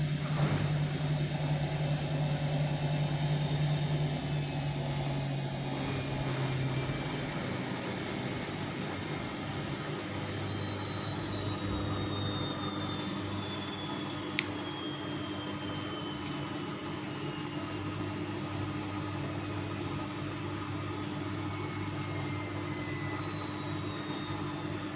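Vestel CM8710 washing machine in its spin cycle: the drum and motor run with a steady rumble and a high whine that falls slowly in pitch as the drum slows. There is a single sharp click about halfway through.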